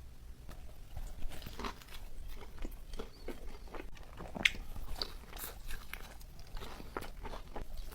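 Close-miked eating: a person biting and chewing food with crunchy, crackling mouth sounds, starting about a second in and going on in quick irregular clicks.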